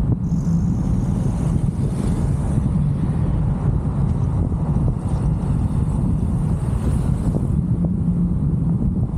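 Steady low rumble of a moving car heard from a camera mounted on its roof: wind buffeting the microphone together with tyre and road noise.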